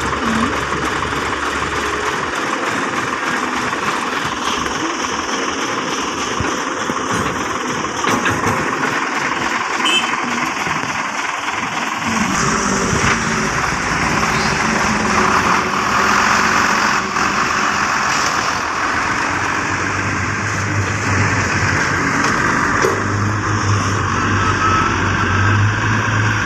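Heavy diesel engines running steadily: a Cat 320D hydraulic excavator working and dump trucks running. A deeper steady low hum comes in during the last few seconds.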